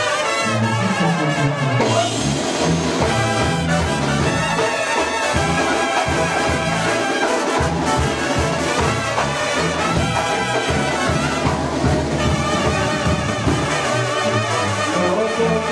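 Live brass band music, with trumpets and trombones playing a loud instrumental passage together.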